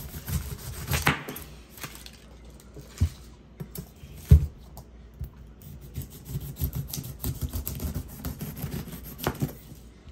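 Large chef's knife cutting through a ripe pineapple's tough rind: crunchy scraping strokes as the crown and skin are sliced off. Several knocks come between the strokes, the loudest about four seconds in.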